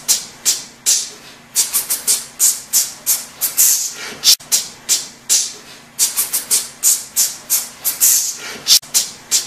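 Rhythmic percussion of short hissing hits, several a second, in the manner of a shaker or maracas, over a faint steady hum.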